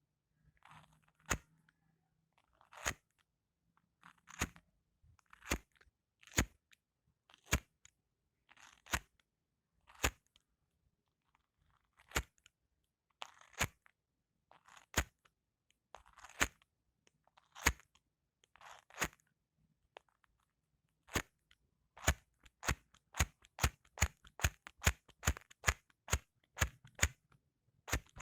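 Lighter being struck over and over: sharp clicks, some with a short scratchy rasp just before them, at first about one every second or so, then a quicker run of about two a second near the end.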